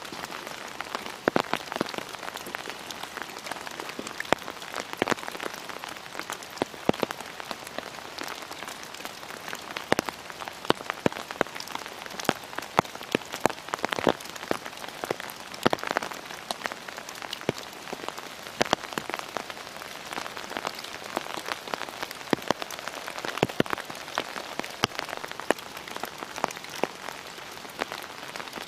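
Steady rain, with frequent sharp, close raindrop hits scattered irregularly through it.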